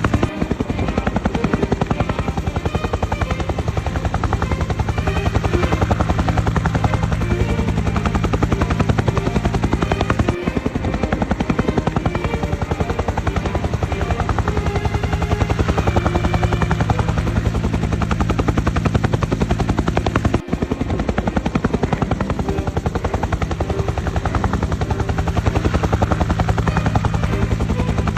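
Helicopter rotor beating fast and steadily over a low engine drone, with brief dips about every ten seconds.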